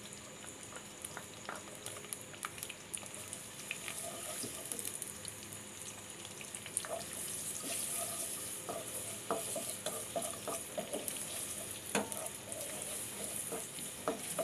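Chopped onion frying in hot ghee and oil with whole spices, a steady sizzle. From about halfway it grows a little louder, and a wooden spatula stirs, with scattered taps and scrapes against the pot.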